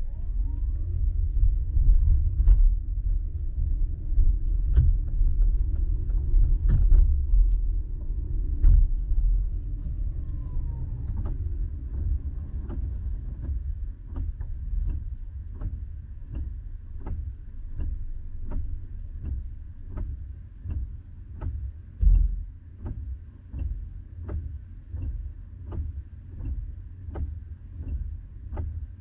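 Car interior in light rain: low engine and road rumble as the car drives through an intersection, easing after about ten seconds as it waits in traffic. From then on a regular tick comes a little faster than once a second, with a single low thump about two-thirds of the way through.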